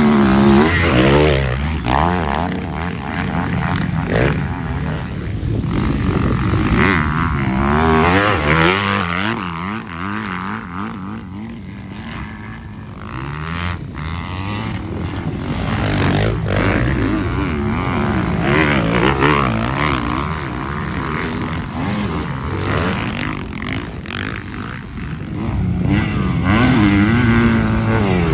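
Motocross dirt bike engine revving up and down as the throttle is worked through the turns and jumps. It fades somewhat about halfway through and grows louder again near the end.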